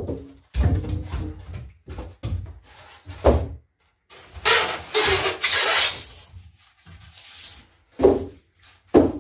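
Polystyrene foam packing blocks scraping and rubbing against a wooden crate and an outboard motor's cowling as they are pulled out by hand. There are a few knocks against the crate, the last two close together near the end.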